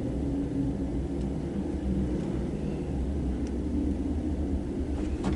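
Schindler M series hydraulic lift car travelling down between floors, a steady low hum and rumble heard inside the cab.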